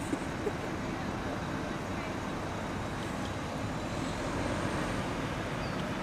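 Steady background hum of road traffic, with a few brief soft clicks near the start.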